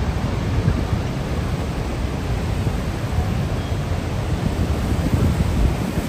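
Roar of Niagara's Horseshoe Falls: a steady, loud rush of falling water with a deep rumble, mixed with wind gusting on the microphone.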